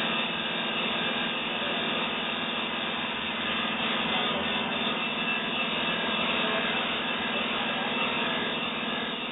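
Lapidary ultrasonic drill machine running and grinding steadily: a constant buzz with a dense grinding noise over it.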